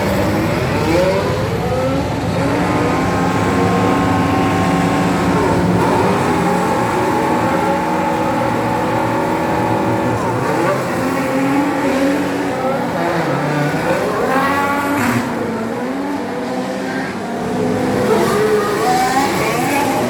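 A field of Formula 1 cars, with 1.6-litre turbo V6 hybrid engines, accelerating away at a race start: many engines overlap, their pitches climbing and dropping back again and again as the cars shift up through the gears. The cars pass one after another, with a dense cluster of rising pitches about two-thirds of the way in.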